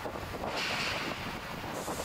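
Wind buffeting the microphone over a steady rush of boat traffic and water.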